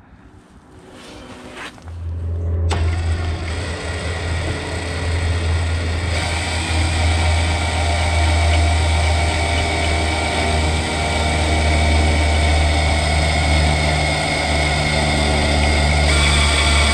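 Cordless drill running steadily, its small bit pressed against the carburetor's choke lever to drill a hole. It starts about two seconds in and gets louder a second later. The hole is not going down: the bit is too short.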